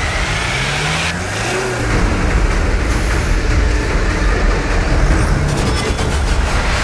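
A vehicle engine rumbling and revving, its pitch rising about a second in, over a dense whooshing sound-effect bed.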